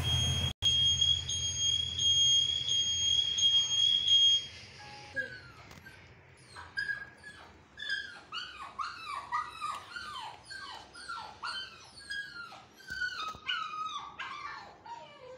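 A steady, high electronic beeping tone over a low hum for the first four seconds or so. Then an Indian Spitz puppy whines in a long string of short cries, each falling in pitch, about two a second.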